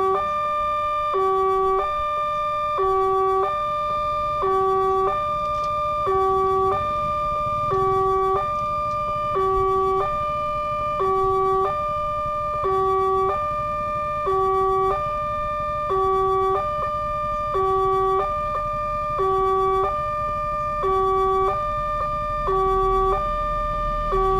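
Railway level crossing warning alarm: an electronic two-tone signal alternating steadily between a lower and a higher tone about every 0.8 seconds, warning that a train is approaching. A low rumble builds near the end.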